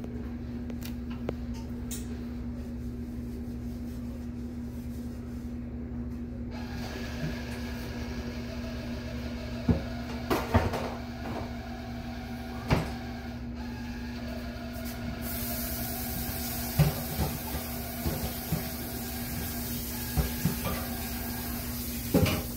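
A steady low mechanical hum, with a few sharp knocks and clicks scattered through the second half. A faint hiss comes in about a third of the way through and grows louder past the middle.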